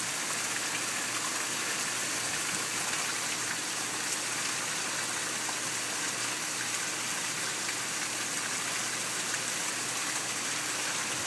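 Hard rain pouring steadily onto a swimming pool and garden, an even hiss with no break.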